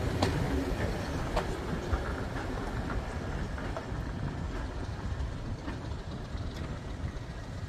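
Goods train of vans and wagons rolling away along the track, the wheels clicking now and then over rail joints, the rumble growing fainter as the brake van passes and recedes.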